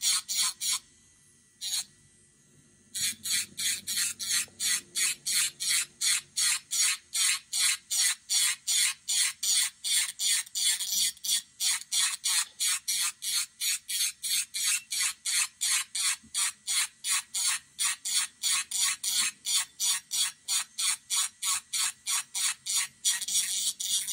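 Hand nail file rasping back and forth over a sculpted acrylic nail in quick, even strokes, about two to three a second. It starts with a few short strokes, pauses for about two seconds, then runs steadily.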